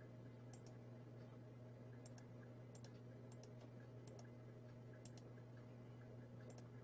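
Near silence: a faint, low, steady hum with scattered faint clicks, several of them in quick pairs.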